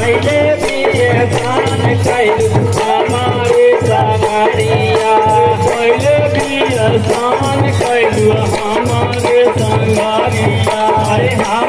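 Jaari folk music for Muharram: a drum beating steadily about twice a second, with rattling, clacking percussion on top and a wavering melody line.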